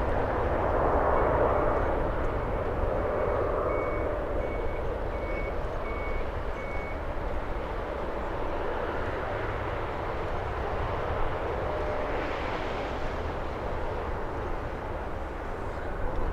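Jet airliner engines running at a distance, a steady rumble that slowly fades. A short high beep repeats about every 0.7 seconds for the first several seconds, like a vehicle's reversing alarm.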